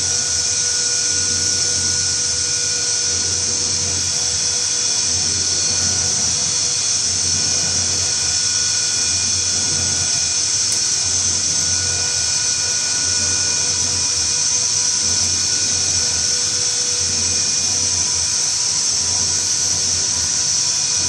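Vacuum emulsifier homogenizer mixer running: a steady high-pitched hiss and whine with a low hum beneath.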